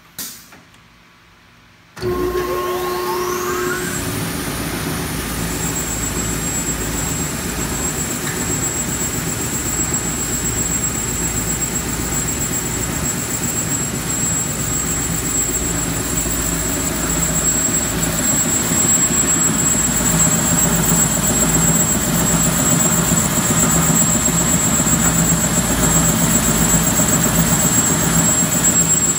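SCMI Sandya 10 wide belt sander powering up: a click, then about two seconds in its motors start with a whine that rises in pitch over a couple of seconds and settles into a steady run. The running machine holds a high whine over a low hum.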